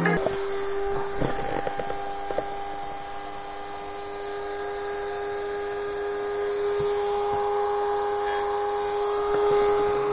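A steady mechanical whine holding one pitch, with a few faint knocks in the first couple of seconds.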